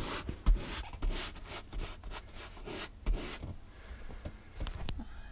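Bristle wax brush scrubbing back and forth over chalk-painted upholstery fabric, rubbing in soft clear wax, about two strokes a second. The scrubbing stops about three and a half seconds in, followed by a few light knocks.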